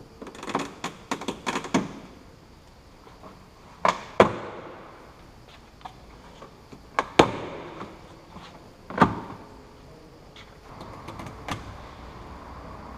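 Sharp clicks and knocks of a screwdriver and plastic boot trim being worked in a Nissan Qashqai's boot: a quick run of clicks at the start, single louder knocks about four, seven and nine seconds in, and a steady rustle of the trim panel being handled near the end.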